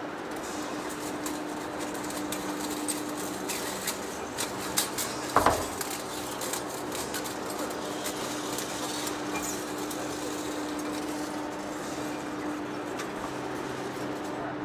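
Heavy-duty face lathe running with a steady hum as its tool turns a large rotor workpiece. Scattered metallic clinks and knocks come through, the loudest a clatter about five seconds in.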